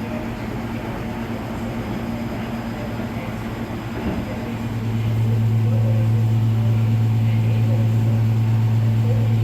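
Electrolux Professional WN6-14 commercial washing machine going into its final extraction spin: a steady low hum that grows louder about halfway through.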